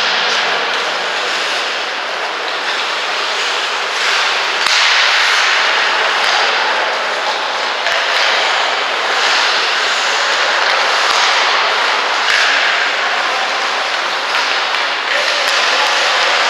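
Ice hockey rink sound: skate blades scraping across the ice, a continuous hiss that swells and fades every few seconds, with a few sharp clicks of sticks or puck.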